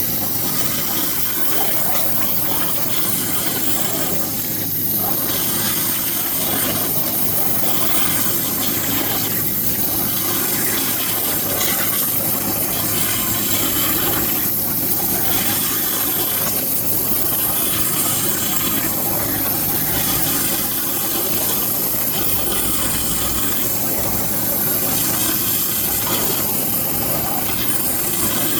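Waterjet cutting machine running: a steady, loud hiss from the high-pressure water jet cutting silicone, with a steady machine hum underneath.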